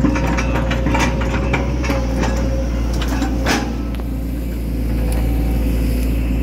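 Hitachi Zaxis 110 excavator's diesel engine running steadily, heard from inside the operator's cab, with frequent short clanks and knocks as the boom and bucket work the soil. One louder knock comes about three and a half seconds in.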